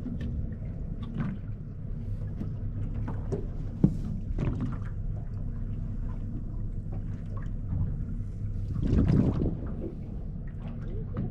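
Fishing boat's engine running with a steady low hum. There is a single sharp knock about four seconds in and a brief rush of noise around nine seconds.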